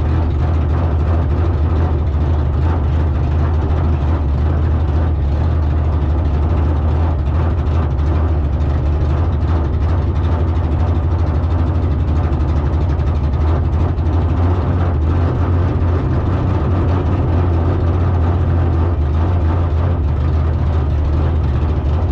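Car engine running at a steady speed, a loud, low, unchanging drone.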